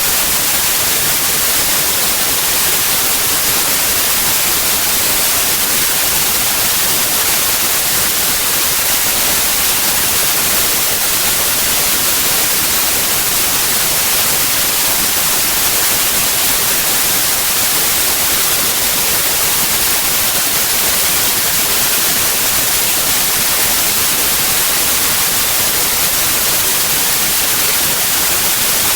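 White noise: a steady, even hiss that does not change.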